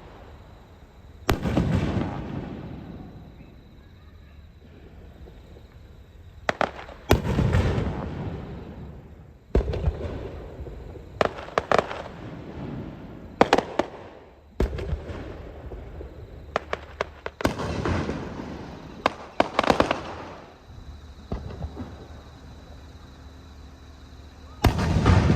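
Aerial fireworks shells bursting: about a dozen sharp booms a few seconds apart, some in quick clusters, each followed by a rolling rumble that dies away.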